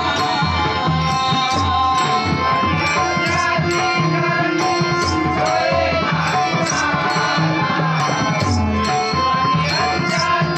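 Marathi devotional bhajan music in a slow tempo: a singer's voice over sustained harmonium tones, with pakhawaj and tabla keeping a steady beat, and crisp high strikes about twice a second, typical of a bhajan group's hand cymbals.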